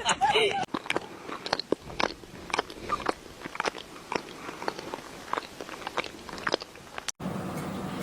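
Crunchy chewing: many irregular, crisp bites and crunches. It cuts off suddenly about seven seconds in, leaving a steady low hum.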